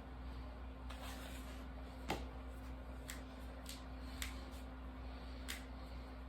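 Fingers and knuckles cracking: about six sharp pops at uneven intervals roughly a second apart, the loudest about two seconds in.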